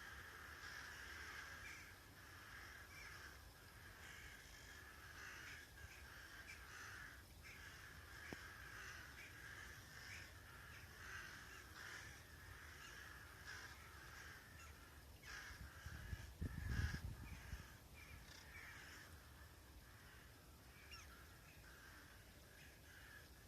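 A large mixed flock of rooks and Daurian jackdaws calling, with many short, overlapping calls that form a steady chatter. A low rumble comes about two-thirds of the way through.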